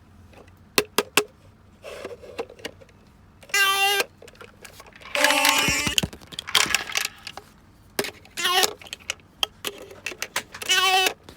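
Owl shape sorter toy playing short electronic sound effects, about five brief pitched jingles, with sharp plastic clicks and knocks between them, three close together about a second in.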